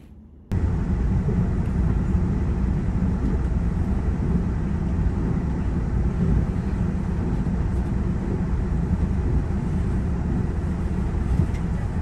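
Train running at speed, heard from inside the carriage as a steady, loud noise heavy in the low end. It cuts in abruptly about half a second in.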